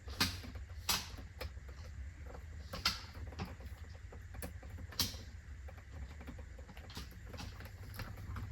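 Irregular small clicks and knocks, with a few sharper ones in the first five seconds, over a low steady hum: hands working on electrical wiring parts.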